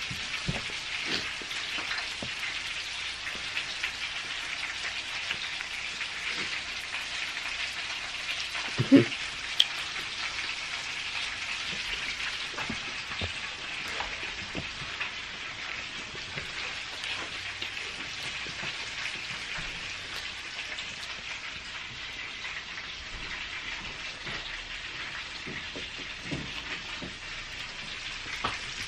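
A person eating chicken drumsticks: scattered soft clicks and mouth sounds of chewing over a steady hiss, with a short hum about nine seconds in.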